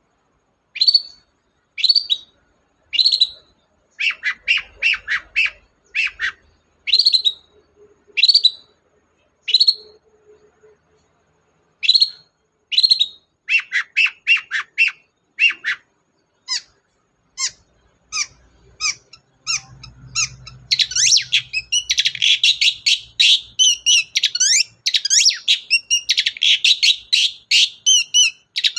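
Long-tailed shrike singing: sharp single calls about once a second at first, then quicker runs of notes, turning into a dense, continuous chattering song about twenty seconds in.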